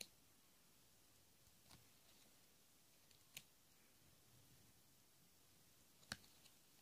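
Near silence broken by a few faint, short clicks of small cardstock cards being handled and moved off a mini card deck one at a time: about four distinct clicks, the sharpest about six seconds in, followed by two smaller ticks.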